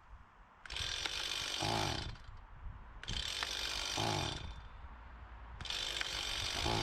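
A power tool running in three bursts of about a second and a half each, with short pauses between.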